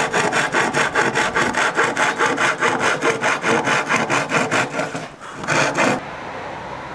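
Small fine-toothed handsaw cutting through thin plywood in quick, even back-and-forth strokes, several a second. The sawing stops about five seconds in, with one last short run of strokes just before six seconds.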